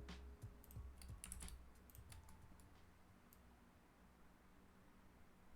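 Faint computer keyboard clicks, a handful of scattered keypresses, most in the first two seconds, over a low hum.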